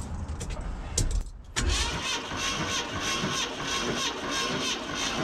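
Ford 460 big-block V8 being cranked over on its starter, spark plugs out, for a wet compression test. The steady cranking sets in about a second and a half in.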